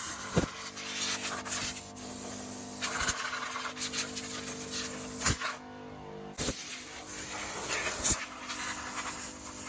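Rusty metal being scrubbed with a stiff brush in a scratchy rasping, with several sharp knocks along the way. A steady low hum runs underneath.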